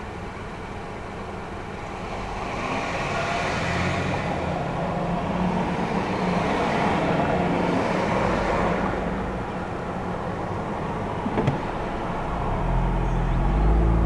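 Road traffic at an intersection: passing cars whose tyre and engine noise swells and fades twice, a single sharp click about eleven seconds in, and a low rumble building near the end.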